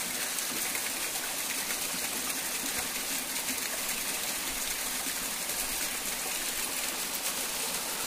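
Small waterfall cascading down a rock face: a steady hiss of falling, splashing water.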